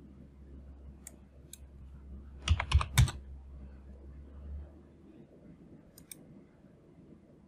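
Computer keyboard keystrokes: a few scattered taps, then a quick run of three or four keys about two and a half seconds in, and two more clicks about six seconds in. The keys sound over a low hum that stops a little past halfway.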